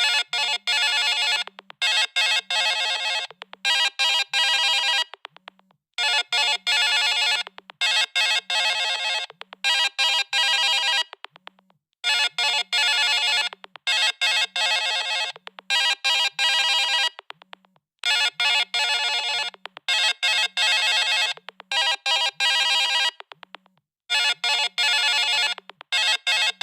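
Coolmi Shark 2 Pro phone's incoming-call ringtone playing: a bright electronic melody that starts abruptly and repeats its phrase about every six seconds, with a soft low pulse underneath.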